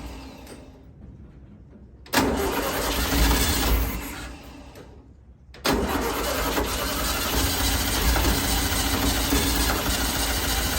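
Starter cranking a 1964 Volkswagen Beetle's air-cooled flat-four engine, which does not catch: a short crank about two seconds in, then a longer one from about halfway through to the end. The engine is getting no gas because its mechanical fuel pump is not delivering fuel.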